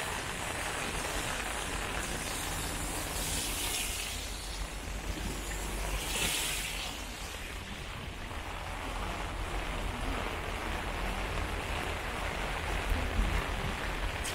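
Steady rain falling on a wet street and pavement, an even hiss, with two brief louder swishes about four and six seconds in.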